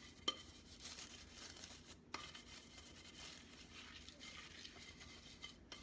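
Faint scratching of a bamboo dish brush's bristles scrubbing a glass pie dish, with a sharp click about a third of a second in and a smaller one about two seconds in.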